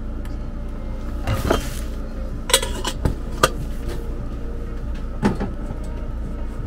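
Stovetop kettle handled and set down on a gas stove's grate: a short rustle, then a clank with a brief metallic ring, a couple of sharp clicks and a final knock, over a steady low hum.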